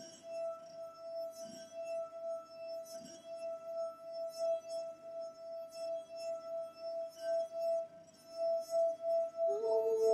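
Wine glass with water sung by a finger circling its rim: one steady pure tone that swells and fades in a quick regular pulse, with a faint scrape about every second and a half. Near the end a second, lower tone joins in.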